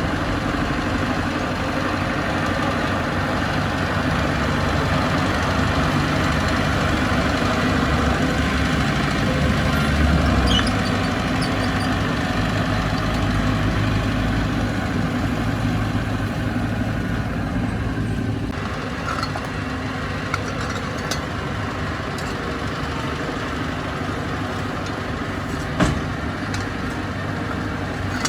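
Bulldozer's diesel engine running steadily. It swells briefly about ten seconds in and eases off a little past the halfway point, with a single sharp knock near the end.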